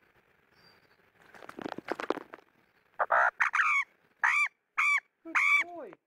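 Australian magpie splashing briefly in a shallow puddle while bathing, then giving about six short calls in quick succession, the last one sliding down in pitch.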